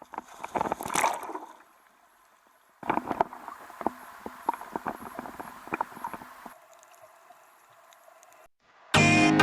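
Water splashing and bubbling around a swimmer going into the sea: a splashy burst at the start, then a few seconds of dense crackling splashes that stop suddenly.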